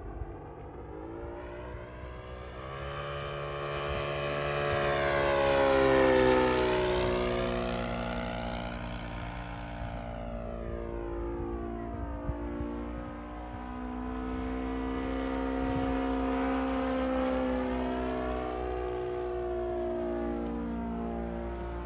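Radio-controlled 1:6 scale F8F Bearcat model's O.S. GF40 four-stroke petrol engine and propeller in flight, making passes. The engine note climbs and falls in pitch as it goes by, loudest about six seconds in, with a second, softer pass in the latter half.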